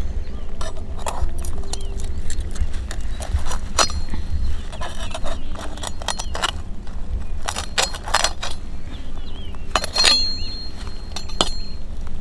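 Sharp metallic clicks and clinks at irregular intervals as mud crabs' claws snap at and grip a steel knife blade and a thin metal rod, one clink ringing briefly about ten seconds in. Birds chirp faintly in the background.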